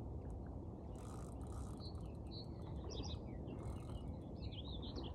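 Small birds singing in short, quick chirping phrases over a steady low rumble.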